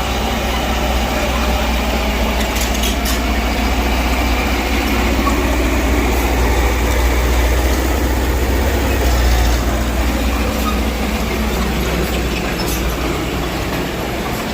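Mitsubishi BD2G crawler bulldozer's diesel engine running while working: a steady low drone that swells a little and then eases off about ten seconds in.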